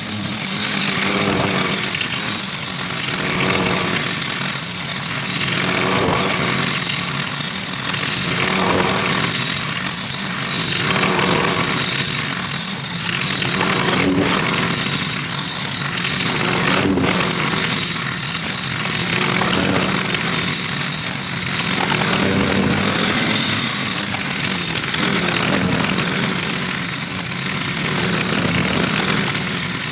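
Bagging lawn mower's engine running continuously under load, its sound swelling and easing about every two seconds as it works over the grass. A couple of brief sharp ticks sound about halfway through.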